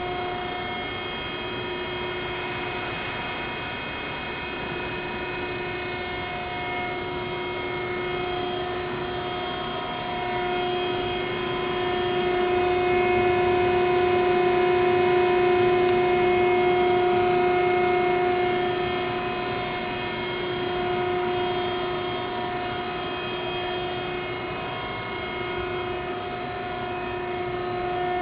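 Hydraulic power unit of a DAVI four-roll plate bending machine running: a steady motor-and-pump whine with overtones, louder for several seconds in the middle.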